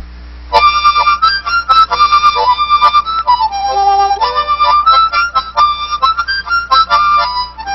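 Harmonica playing a tune of quick, short notes that step up and down, coming in sharply about half a second in.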